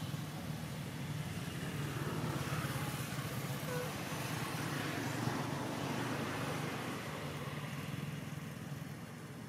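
A motor vehicle's engine running out of sight, a steady rumble that swells over the first few seconds and then slowly fades.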